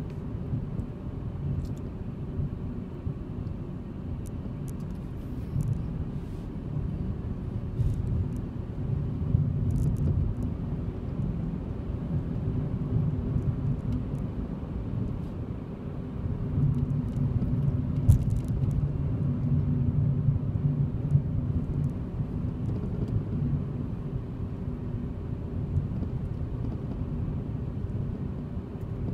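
Car engine and tyre rumble heard from inside the cabin while driving: a steady low drone that swells somewhat about halfway through. A few faint light ticks sit over it.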